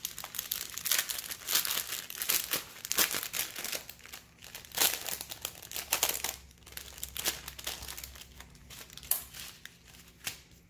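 Clear plastic packaging bag crinkling as it is handled and pulled open, in irregular crackles that thin out near the end.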